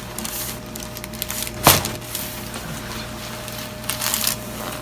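A single sharp crack, less than two seconds in: a joint popping during a chiropractic manual adjustment, over a low steady hum.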